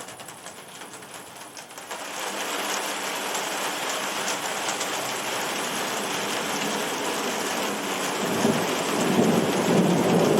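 Heavy rain, a dense steady hiss that thickens about two seconds in, with a rumble of thunder swelling up under it near the end and becoming the loudest part.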